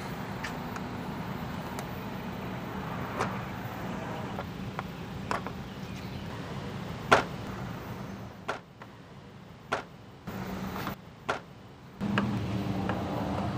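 Plastic push-pin retainers on a car's radiator cover being pried up with a flathead screwdriver: scattered sharp clicks and snaps, the loudest about seven seconds in, over steady background noise.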